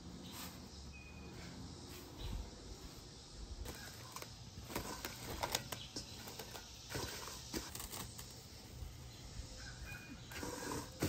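Plastic cling wrap crinkling and crackling as it is stretched and pressed over a stainless-steel mixing bowl, a cluster of faint crackles and rustles in the middle. Before that come the soft sounds of hands pressing dough on a floured wooden counter.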